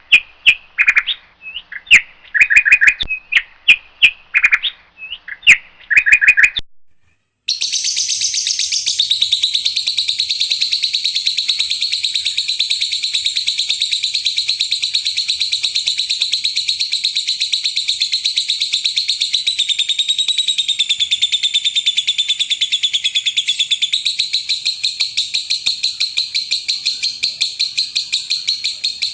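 Recorded songbird calls: for about six seconds a series of short, sharp chirps mixed with clicks, then after a brief pause a very rapid, high, continuous trill that runs on unbroken.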